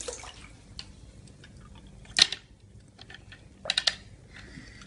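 Hot Wheels Color Shifters toy cars handled in water: a few short clacks and splashes, the loudest about two seconds in and two more close together near the end.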